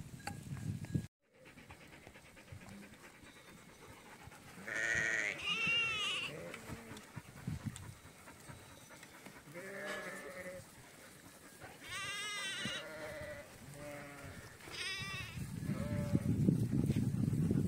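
Sheep of a large flock bleating, several separate wavering calls one after another. A low rushing noise swells near the end.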